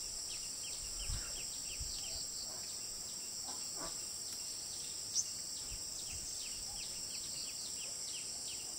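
Steady high-pitched insect drone, with a short falling chirp repeating about three times a second.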